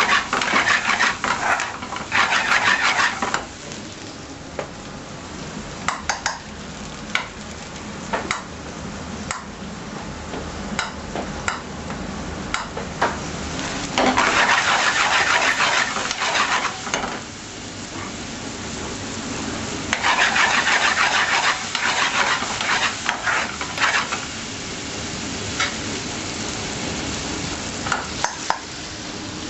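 Garlic and chicken tikka sizzling in a metal curry pan over a gas flame while a metal ladle stirs them, with clicks of the ladle against the pan. The sizzling swells loudly three times: at the start, about halfway through, and about two-thirds through.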